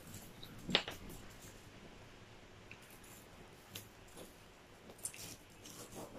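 Eating crunchy french fries: scattered crisp crunches and small crackles of chewing and of hands rummaging through the pile of fries, with one louder crunch about a second in.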